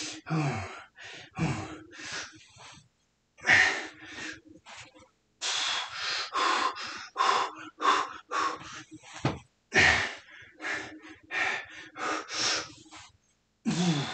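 A man breathing hard and gasping in quick, repeated breaths, some with a voiced grunt on the exhale, as he works through a long set of squats.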